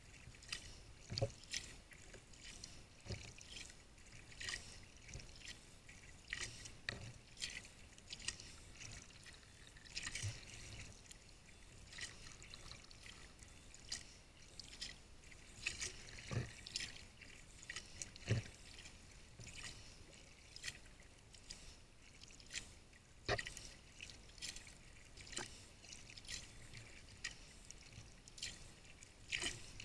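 Sea kayak paddle strokes: the blades dip into calm water with a splash and a trickle of drips every second or two.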